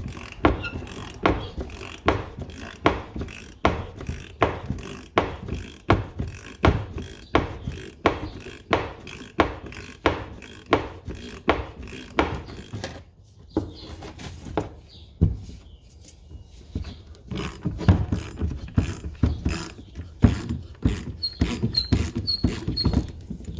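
Long ratchet clicking as it turns the forcing screw of a pulley puller, pressing the pulley off a power steering pump shaft: a steady run of clicks, about two a second, with a pause of a few seconds past the middle.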